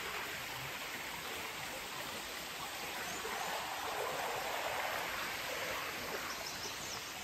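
River current running steadily over rippled shallows: an even watery rush, slightly louder about four to five seconds in.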